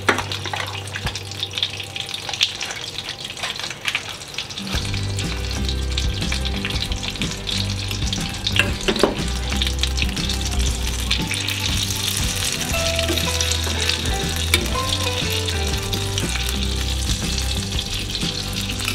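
Butter sizzling as it melts in a stainless steel frying pan over a gas flame, stirred with a fork that now and then clicks against the pan.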